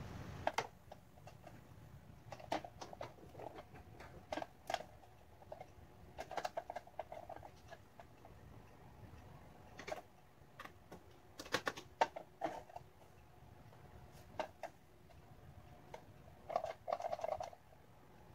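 Handling noises: irregular clicks, taps and rustles as a power cord, its plastic plug and a sewing-machine foot controller are moved about on a wooden desk. Some of the clicks come in short clusters.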